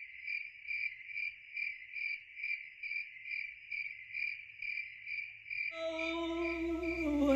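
A cricket chirping in an even rhythm, a little over two chirps a second. Soft music comes in under it about six seconds in.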